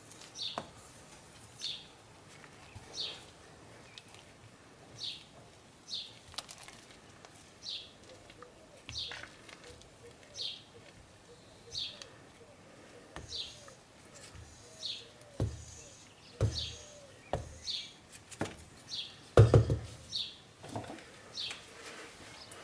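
A small bird chirping over and over, a short falling chirp about every second and a half. Near the end come a few dull knocks, the loudest about 19 seconds in, from the wooden spoon against the stainless steel soap pot.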